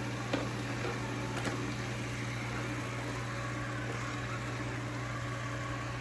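Philco PAS09C robot vacuum cleaner running as it drives across the floor: a steady motor hum and brush whir, with two light clicks in the first second and a half.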